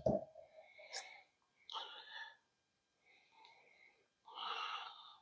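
PVC cement dauber at work: a knock right at the start as it goes into the cement can, then soft swishing strokes as cement is swabbed around the outside of the PVC pipe end, the longest near the end.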